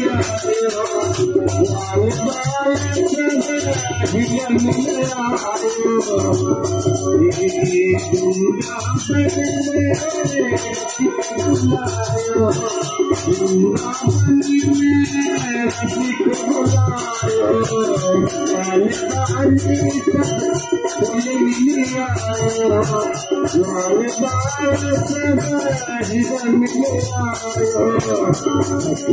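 Bhajan music: a dholak drum keeps a steady beat under a fast, even rattling jingle, with held melodic notes above the drum.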